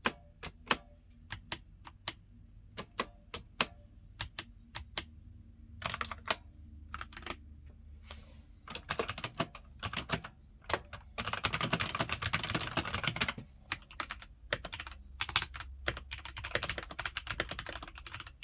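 Typing on a mechanical keyboard: single keystrokes clicking a little apart at first, then bursts of rapid typing, fastest and densest just past the middle.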